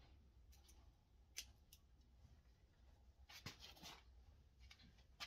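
Scissors snipping a horse's forelock hair: a few faint, separate snips, with a quick run of cuts about three and a half seconds in.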